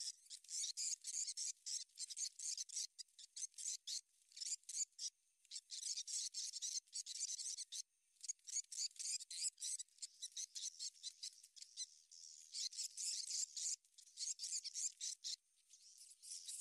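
A large flock of small birds twittering overhead: dense, rapid, high chirping that comes in bursts of a second or two with short breaks between.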